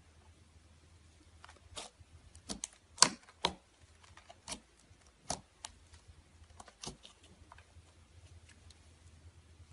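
Slime squeezed and worked by hand, giving irregular sharp clicks and pops, the loudest about three seconds in, over a faint steady low hum.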